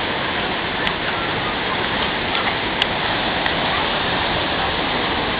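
Steady rushing water with a few faint, sharp clicks.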